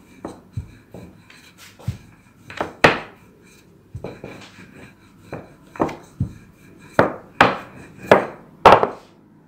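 Wooden rolling pin working dough on a wooden chopping board: irregular wooden knocks and clunks as the pin and board bump together, with faint rubbing between them. The loudest knocks come about three seconds in and in a quick run near the end.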